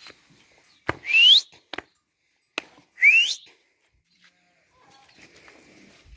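A person whistling twice to drive a flock of sheep, each a short whistle rising in pitch, the second about two seconds after the first. A few sharp clicks come between the whistles.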